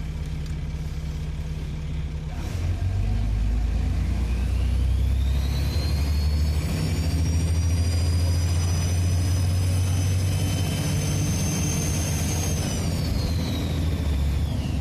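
Trident 2 double-decker bus accelerating: the diesel engine's low drone grows louder under load, and a high turbocharger whistle rises in pitch, holds steady for several seconds, then falls away near the end as the bus eases off.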